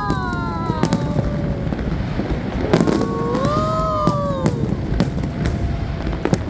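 Fireworks exploding in an irregular string of sharp bangs and crackles. Twice, near the start and again about three seconds in, several voices call out in long drawn-out whoops over the bangs.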